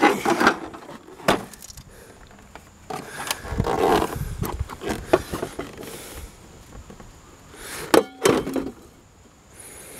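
Plastic dehumidifier casings being handled and shifted against one another: scattered hard knocks, with a longer scraping rustle around three to four seconds in and a brief pitched squeak near eight seconds.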